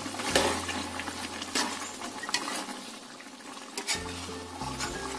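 Metal spatula stirring chicken in a simmering sauce in an aluminium wok, clinking and scraping against the pan about five times over a light sizzle.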